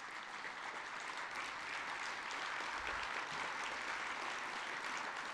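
Audience applauding: a steady patter of many hands clapping that swells a little and then eases off near the end.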